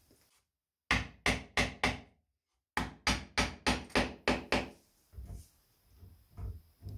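Hammer blows on wood: four quick strikes, a short break, then about seven more at roughly three a second, followed by a few quieter knocks.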